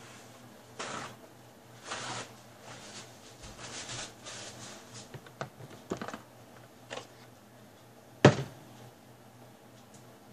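Handling noises: rustling and scattered short clicks, with one sharp knock about eight seconds in that is the loudest sound, as objects such as a plastic lotion bottle are picked up, set down and squeezed.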